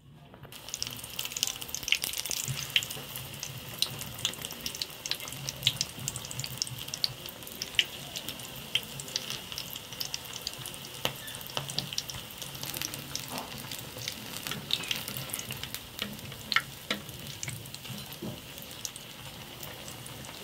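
Battered spinach-leaf pakoras deep-frying in hot ghee in a kadhai: a steady sizzle thick with sharp crackling pops, starting about half a second in.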